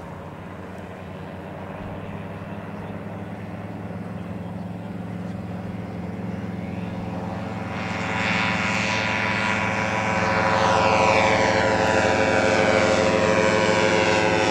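Maxair Hummer ultralight's single-cylinder Zenoah two-stroke engine and belt-driven propeller running steadily, growing louder as the aircraft climbs out and flies close by. It gets noticeably louder and brighter about eight seconds in and is loudest near the end.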